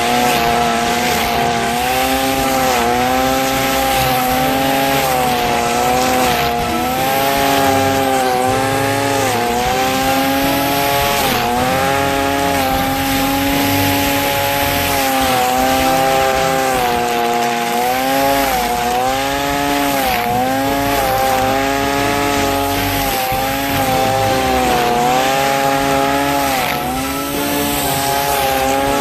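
Black Max two-stroke gas string trimmer running at high throttle while cutting grass, its pitch dipping and recovering every second or two.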